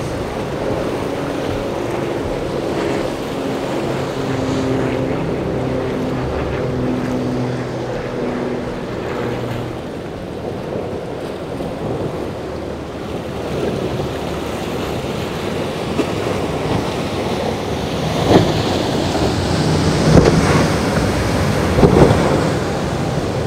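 Powerboat engines running through rough inlet water: a steady engine hum at first, then the rush of hull wash and spray building as a boat passes close, with three loud slaps of the hull hitting waves in the last few seconds. Wind buffets the microphone.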